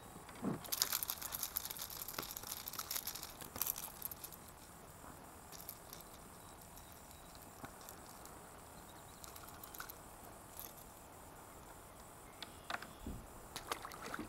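Small clicks and rattles of fishing tackle being handled in a kayak, busiest in the first few seconds and again near the end, with a few scattered ticks between.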